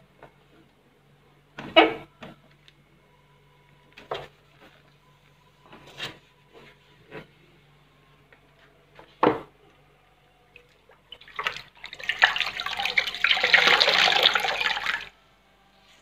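A damp cloth wiping plastic fridge-door bins, heard as a few scattered soft knocks and rubs over a low steady hum. From about eleven seconds in comes roughly four seconds of loud water sound, like a cloth being rinsed or water running into a basin.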